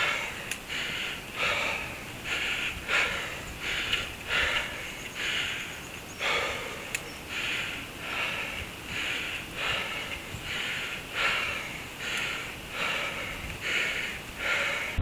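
A cyclist's heavy, laboured breathing close to the microphone: a hard breath roughly every three-quarters of a second, the sound of a rider overheated and struggling on a slow uphill climb.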